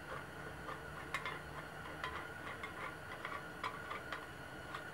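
Light, irregular metallic clicks and ticks as a nut is turned by hand on a small engine's crankshaft, holding a sheet-metal degree wheel loosely in place.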